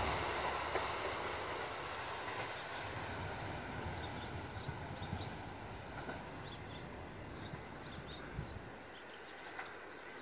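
A train led by a D 445 diesel locomotive with two ALn 663 railcars runs away down the line. Its engine rumble and rail noise fade steadily into the distance.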